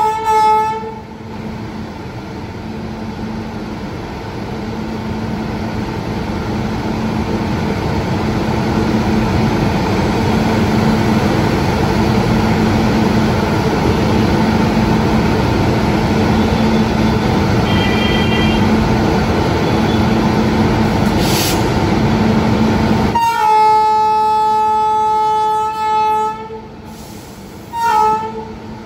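WAP-7 electric locomotive's horn: one long steady blast of about three seconds, then a short toot, over the locomotive's steady running noise. A horn cuts off right at the start.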